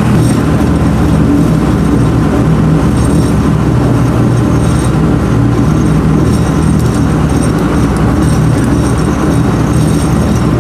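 Amphibious duck boat's engine running at a steady cruise while under way on the river, a constant low drone with no change in speed.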